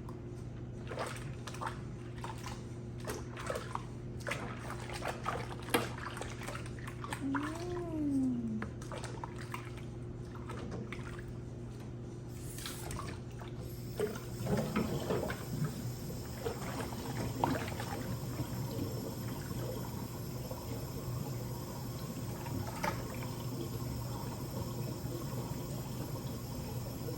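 Handheld shower water running and splashing over a small puppy, with a steady low hum underneath. A brief rising-then-falling tone comes about eight seconds in, and the water becomes a fuller, steadier spray about halfway through.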